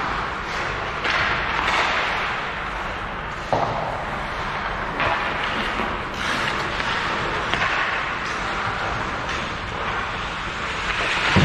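Ice hockey play on a rink: skates scraping across the ice, with a sharp knock of stick, puck or boards about three and a half seconds in.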